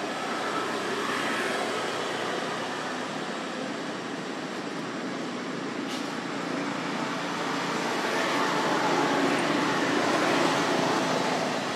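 Steady rushing background noise like distant vehicle traffic, swelling louder about eight seconds in, with one faint click near the middle.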